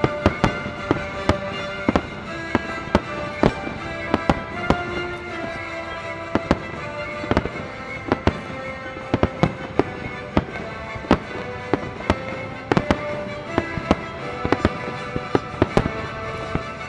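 Fireworks shells bursting in quick succession, several sharp bangs a second, over music with sustained notes.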